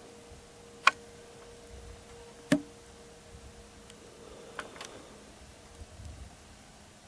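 Two sharp, short clicks about a second apart, then a few fainter clicks, from a bolt-action rifle being handled and readied to fire, over a faint steady hum.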